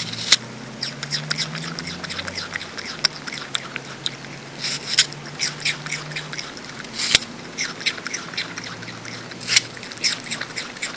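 Common brushtail possum chewing fruit close to the microphone: irregular crunching clicks, several coming in quick clusters, over a faint low steady hum.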